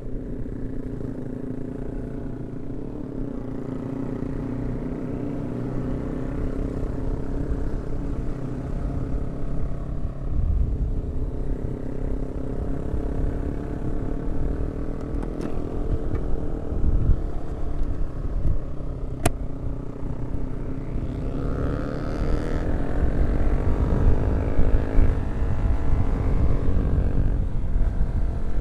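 Yamaha R15 V3 single-cylinder motorcycle engine running under way, its note rising in pitch as it speeds up about three-quarters of the way through.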